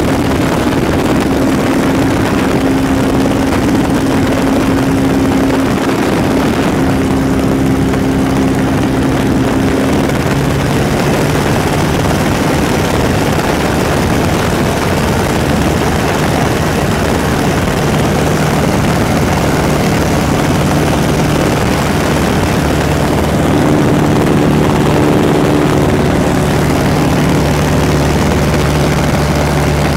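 Light-sport airplane's piston engine and propeller droning steadily in flight, heard from the cockpit with the door and window open, so wind noise rushes over it. The engine note shifts lower about ten seconds in.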